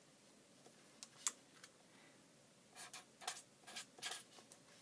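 Faint scratching and ticking of a gold pen's tip on paper as a word is handwritten. A few light ticks come first, then a quick run of short strokes in the second half.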